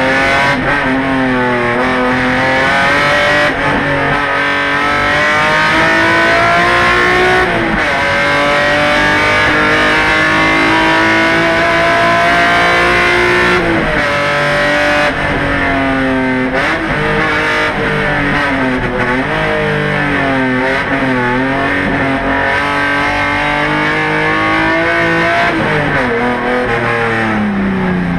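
Race car engine heard from inside the stripped cabin, run hard up through the revs with sudden drops in pitch at each gear change or lift. There is a long steady climb in revs about a third of the way in, then a run of quick dips and rises through the bends.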